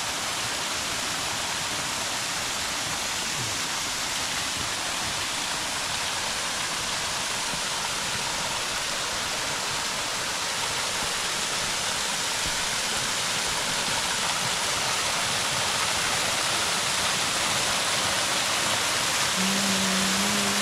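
Small waterfall with low water, a steady rush of falling water that slowly grows a little louder. A brief low tone sounds near the end.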